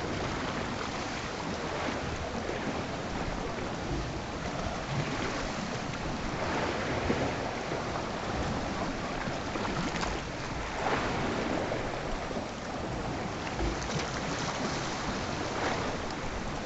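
Sea washing against a rocky shore, with wind on the microphone; the noise stays steady, with a few surges.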